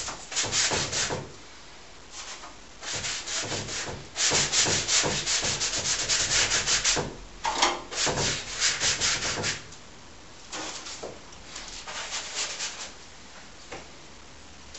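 Paintbrush scrubbing paint onto a canvas in bursts of rapid back-and-forth strokes, the longest and loudest run in the middle, with a short squeak about halfway through.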